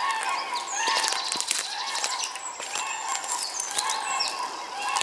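Wild birds calling: repeated honks of geese, with short high chirps and whistles of songbirds over them. Scattered rustles of footsteps through dry grass and leaf litter.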